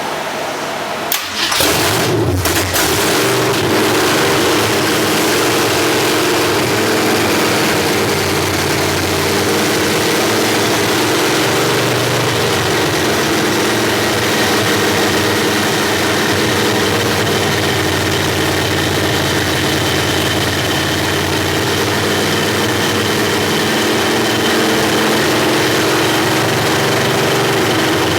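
A 1973 Ford F100's rebuilt Ford FE big-block V8 on open straight headers cranks and catches about two seconds in, then runs loud and fast at a steady high idle for flat-tappet camshaft break-in.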